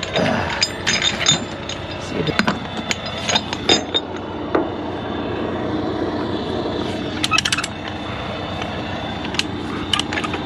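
Steel tie-down chains and binders clinking and clanking as they are handled for chaining down a load, in short irregular metallic strikes over a steady engine hum.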